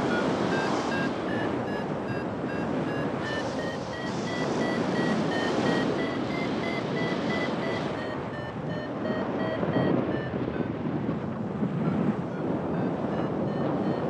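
Wind rushing over the microphone in flight, with a flight variometer beeping rapidly throughout. The beeps climb in pitch over the first several seconds and ease back down after about eight seconds, a rising pitch being the vario's signal of climbing in lift.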